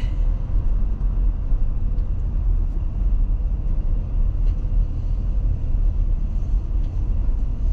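Steady low rumble of a moving car heard from inside its cabin: engine and tyre road noise while driving on an expressway.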